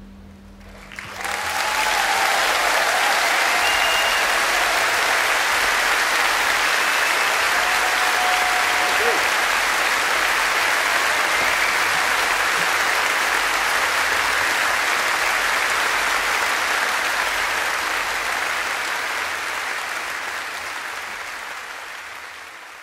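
Large concert audience applauding at the end of a song. The applause starts about a second in, holds steady, and fades away near the end.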